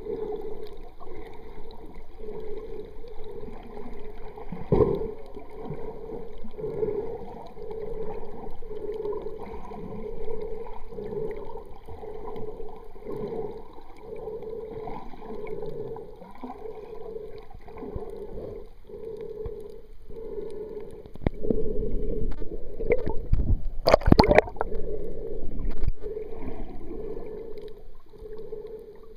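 Muffled underwater sound of water gurgling, with a regular pulsing a little faster than once a second. It gets louder and rumbling for a few seconds near the end, with one sharp crackle.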